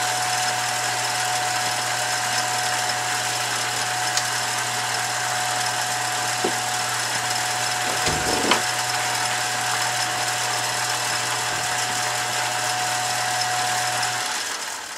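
Billiard cue lathe motor running steadily with a low hum and a steady whine as it spins a cue shaft, with a few light clicks about midway; it is switched off about a second before the end and winds down.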